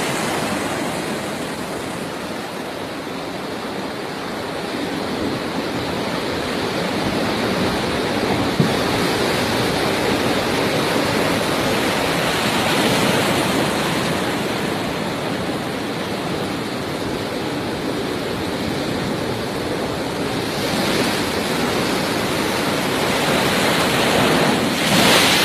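Floodwater rushing in a steady, loud wash of water noise, swelling a little near the end.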